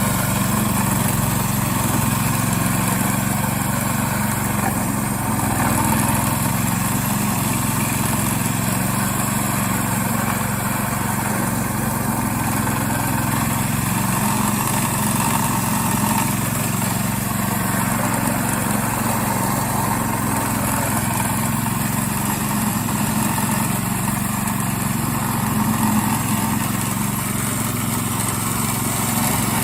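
Small engine of a homemade radio-controlled four-wheel-drive lawn mower running steadily at an even speed.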